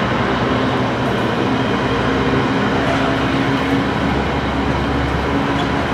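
A train running past steadily, a constant loud rumble with an even hum through it.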